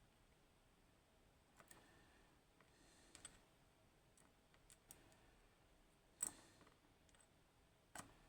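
Faint, scattered small metal clicks and taps from handling a disassembled pin-tumbler lock's pins and parts, about half a dozen in all, the sharpest about six seconds in and another near the end.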